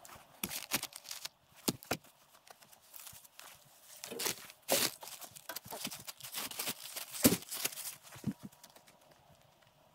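Plastic vapor-barrier sheeting crinkling and rustling in irregular bursts, thinning out near the end.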